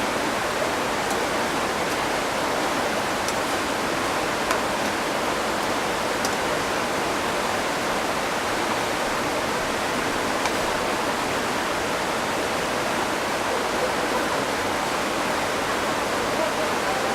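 Waterfall below rushing steadily, a constant roar of water with a few faint clicks over it.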